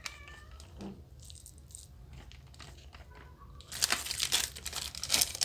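A hand squeezing and mixing shredded boiled cabbage with gram-flour batter in a steel bowl: a quick, irregular wet crunching and crackling that starts about four seconds in, after a quieter stretch.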